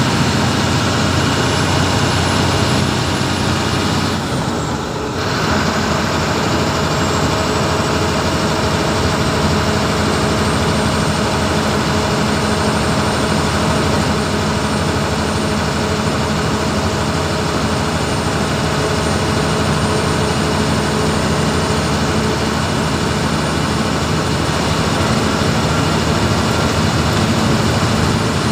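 Bus engine drone and road noise heard from inside the cabin while cruising, steady with a few held tones, dipping briefly about four seconds in.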